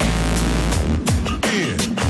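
Electronic background music with a heavy bass line and a steady, repeating drum beat.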